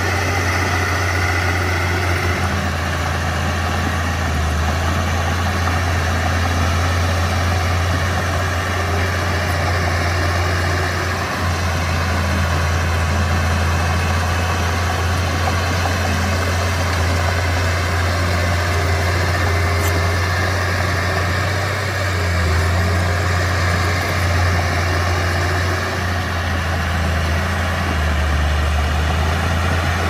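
Komatsu D31P bulldozer's diesel engine running steadily with a strong low hum and small rises and dips in load.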